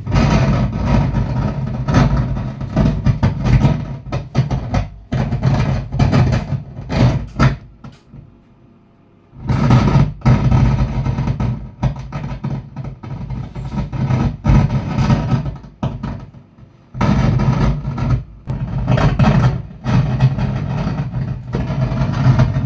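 Stranger PBT701 speaker playing loud, distorted audio over a steady low hum, cutting out twice partway through: the sound problem the unit is being checked for.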